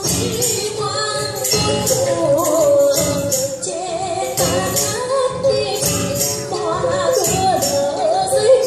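Traditional Vietnamese music played live by the water-puppet orchestra: a melody that bends and wavers in pitch, over regular percussion strikes about twice a second.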